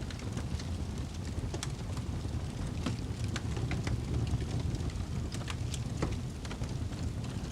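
Fire burning with a steady low rumble and irregular sharp crackles and pops scattered throughout.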